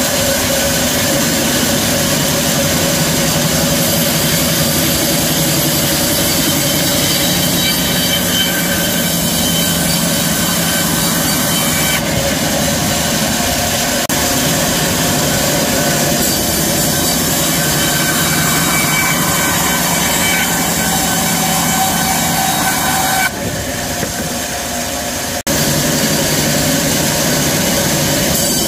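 Band sawmill running and cutting a western red cedar log into 15 mm boards: a loud, steady machine noise with a few held whining tones. About 23 seconds in it drops quieter for a couple of seconds, then comes back suddenly.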